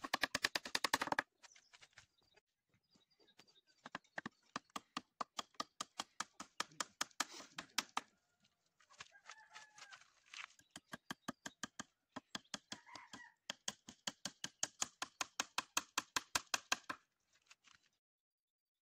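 Chickens calling, with a curving call about nine to ten seconds in and another near thirteen seconds, over runs of rapid, evenly spaced clicking that stops near the end.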